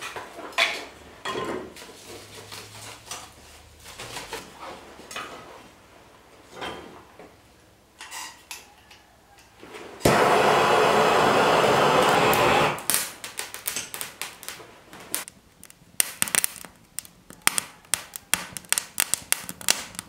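Sticks of kindling knocking together as they are laid into a Kalamazoo wood cook stove's firebox. About ten seconds in, a hand-held torch hisses loudly and steadily for about three seconds as it lights the fire, then cuts off. Rapid crackling and snapping follows as the kindling catches.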